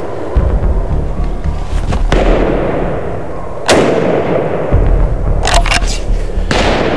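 Several rifle shots, each followed by a long echo: one about two seconds in, a louder one near the middle, then a quick pair and one more near the end.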